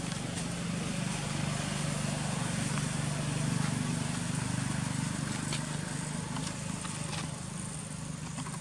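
Steady low hum of a motor vehicle's engine, swelling a little around the middle and easing off, with a few faint clicks over it.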